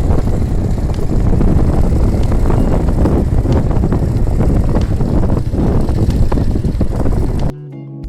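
Loud, rough rumble of a moving vehicle with wind buffeting the microphone. It cuts off suddenly near the end, where guitar music begins.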